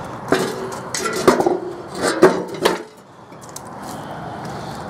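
Cast-iron brake drum being set down into a steel lawnmower deck: about half a dozen metal clanks and scrapes with a short ring, over the first three seconds or so.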